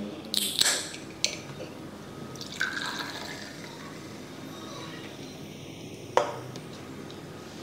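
Soda water poured into a glass and fizzing, with a few sharp clicks.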